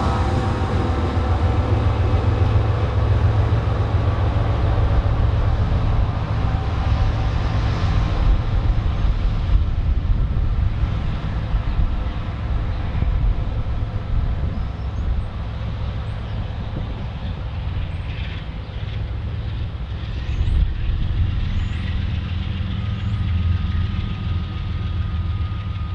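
Freight train of empty oil tank cars rolling by with a steady low rumble. A diesel locomotive's engine drone fades out over the first several seconds.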